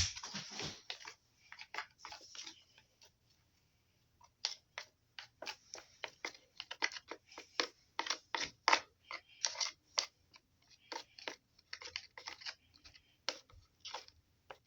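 A spoon stirring glue and yellow paint in a container, scraping and knocking against the sides in quick, irregular strokes, several a second. A sharp click comes right at the start, and there is a brief pause before the stirring picks up about four seconds in.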